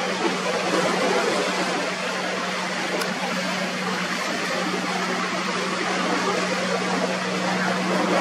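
Steady rush of wind and churning, spraying water with a low steady drone underneath, from a center-console boat on outboard motors running hard through choppy waves.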